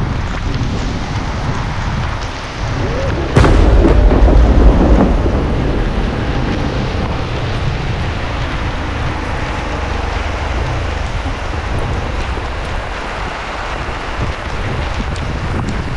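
Heavy rain hissing steadily. About three and a half seconds in, a thunderclap cracks sharply and rumbles loudly for a couple of seconds before fading back under the rain.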